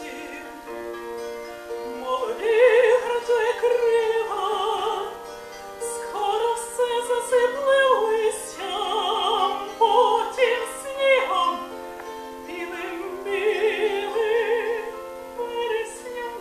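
A woman singing with a wide vibrato, accompanying herself on a bandura. Its plucked strings ring on under the voice, and the sung phrases come in about two seconds in.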